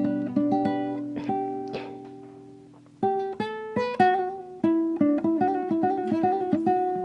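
Acoustic guitar played solo: plucked notes left to ring and die away, then from about three seconds in a livelier run of picked single notes.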